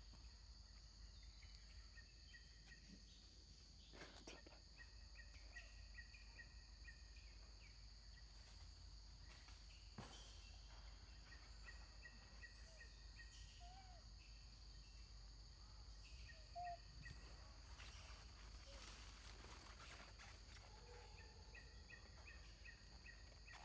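Faint forest ambience: a steady high-pitched insect drone, with faint repeated chirping and a few soft clicks.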